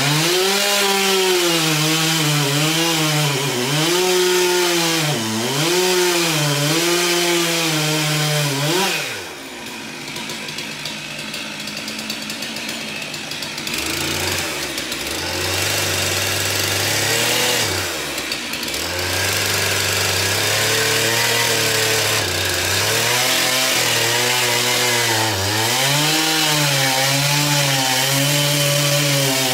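Stihl two-stroke chainsaw boring into a log, the engine pitch wavering as the bar bogs and frees in the cut. About nine seconds in the saw comes out of the wood and runs for a while at lower, steadier revs, then picks back up to high speed and cuts again through the second half.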